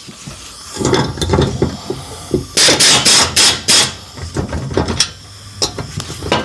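Air impact wrench hammering in four short bursts about halfway through, running down the mounting nuts of a replacement mower-deck blade spindle. Before that, loose metal nuts and hardware clink and rattle as they are set on the studs, and a few shorter taps follow near the end.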